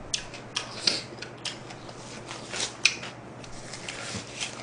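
Disposable plastic gloves and a paper tissue crinkling and rustling in short, irregular, crisp crackles as hands are pulled out of the gloves and wiped.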